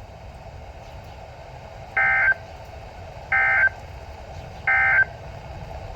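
Emergency Alert System SAME end-of-message data bursts on NOAA Weather Radio: three short, identical buzzy digital tone bursts about 1.3 seconds apart, signalling the end of the warning message.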